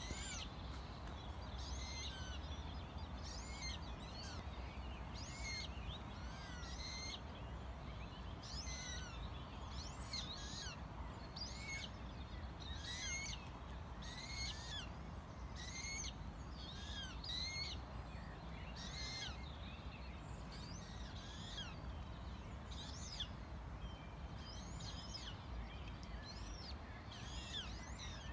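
Small songbirds singing, short high twittering phrases repeated about every second and a half, over a steady low rumble.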